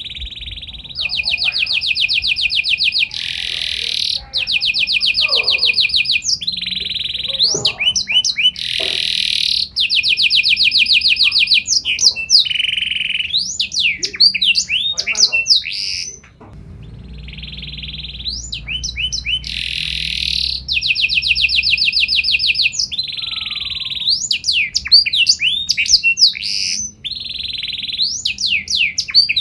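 Domestic canary singing a long, loud song: fast trills of rapidly repeated notes, each held for a second or two, alternating with quick sweeping whistled notes, with a brief break about halfway through.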